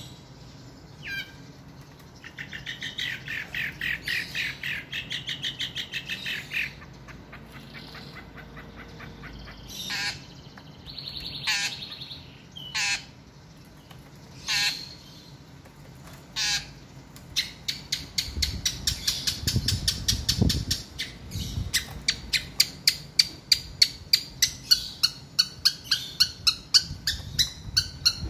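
Long-tailed shrike singing a varied song. It opens with a rapid chattering run of notes, then gives single sharp calls a second or two apart. Near the end comes a long series of sharp repeated notes, about three a second, growing louder.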